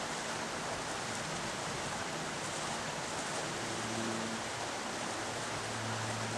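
Steady rushing noise of flowing river water. A faint low hum comes in about halfway through and grows slightly near the end.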